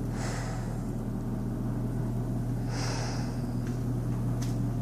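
Steady low machine hum of shop equipment running, with two short hisses, one at the start and one about three seconds in, and a couple of faint clicks near the end.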